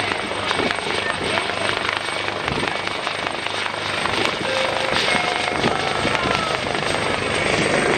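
A military helicopter flying close alongside a fast-moving catamaran, its rotor beating steadily, over a constant rush of wind and water.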